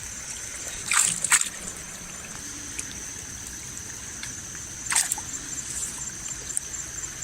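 Water splashing and dripping in short bursts, twice close together about a second in and once about five seconds in, over a steady high-pitched insect drone.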